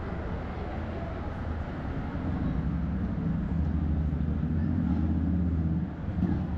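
A motor vehicle's engine running close by in city street traffic, a steady low hum that grows louder about two seconds in and falls away near the end.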